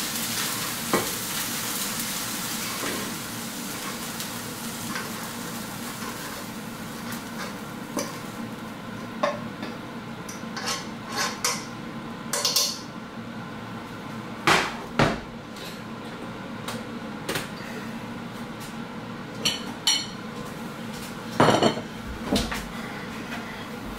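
Rice, tuna and broccoli sizzling in a frying pan while a spoon scrapes and clinks against the pan as the food is stirred. The sizzle fades over the first several seconds, leaving scattered clinks and knocks of the spoon and pan.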